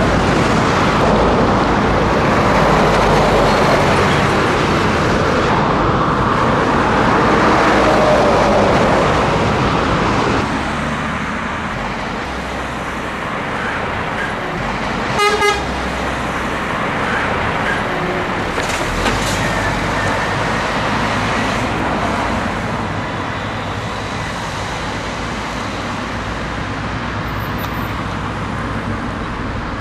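Scania truck on the road: steady engine and road noise, louder for the first ten seconds or so and then quieter. A vehicle horn gives one short toot about halfway through.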